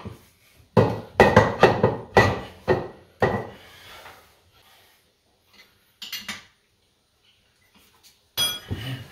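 Metal hardware and hand tools clanking: a quick run of knocks and clatter in the first few seconds, then a few ringing metallic clinks near the end.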